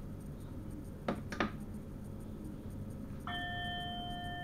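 Two sharp clicks a third of a second apart, then a bell-like chime of several pitches starts about three seconds in and holds steady: an electronic signal tone in a train driver's cab, over the low hum of the cab.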